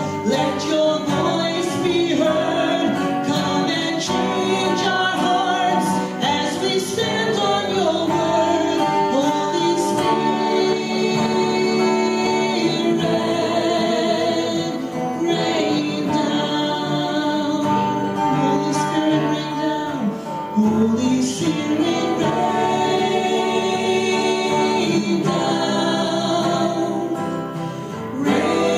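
A woman sings a gospel worship song into a microphone over amplified musical backing.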